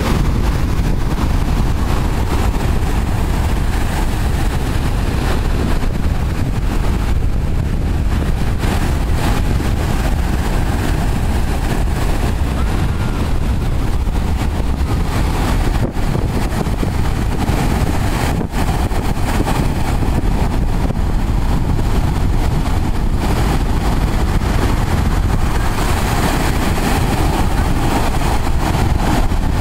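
Storm surf breaking and washing up a sandy beach, a loud continuous rush of water. Strong wind buffets the microphone, adding a heavy low rumble.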